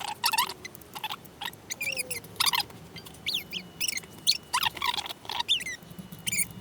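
Clicky Kailh BOX Jade keyboard switches being typed on in an uneven rhythm, a few keystrokes a second, each a sharp, bright, high click.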